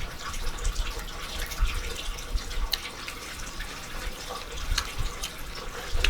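Close-up eating sounds: a person chewing food, with small wet mouth clicks and smacks scattered throughout.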